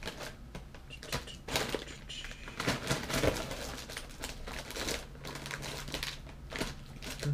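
Plastic snack wrappers and tissue paper crinkling and rustling as a hand rummages through a snack box, in irregular crackles and clicks.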